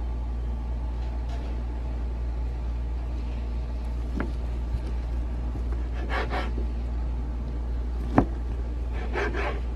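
Kitchen knife cutting through sheets of fish cake on a cutting board: a few knocks of the blade on the board, the loudest about eight seconds in, and two short scraping slices, over a steady low hum.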